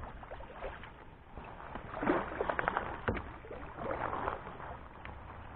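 Kayak paddle strokes splashing in the water, two strokes about two and four seconds in, with a sharp knock in between.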